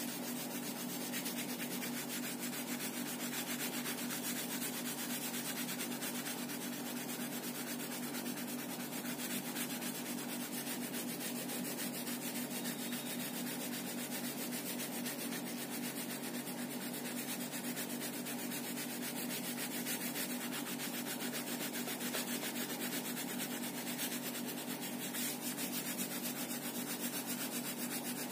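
Oil pastels rubbed back and forth across paper, a continuous run of quick rubbing strokes, over a steady low hum.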